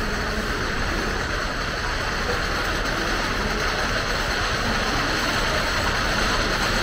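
Wooden roller coaster train rumbling along its wooden track, a steady rolling roar that grows slowly louder as the train approaches.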